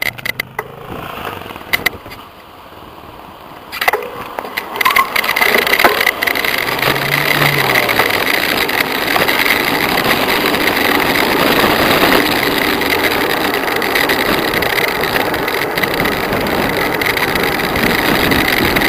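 Steady rushing noise of a bicycle riding downhill at speed, wind and road noise on the microphone, setting in about four seconds in after a quieter start and holding loud and even.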